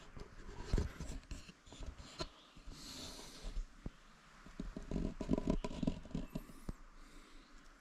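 Handling noise from the camera being turned and repositioned by hand: irregular scrapes, clicks and knocks with rustling of clothing, a brief scratchy brushing about three seconds in, and a flurry of knocks around five to six seconds in.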